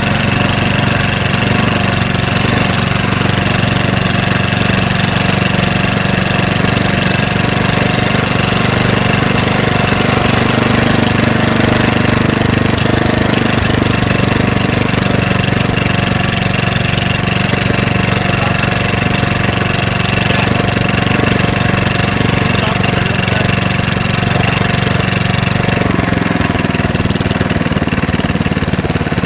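A riding lawn mower engine on a mud mower running steadily as the mower drives along a trail; its note changes near the end.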